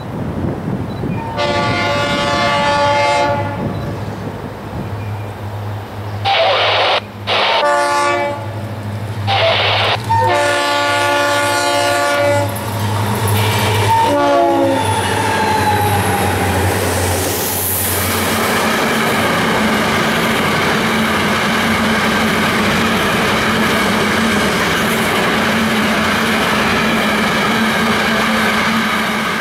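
Florida East Coast SD40-2 diesel locomotives leading a freight train sound their air horn in a series of long and short blasts as they approach and pass, with the low drone of their engines underneath. After the locomotives pass, a long string of loaded hopper cars rolls by with a steady rumble of wheels on rail.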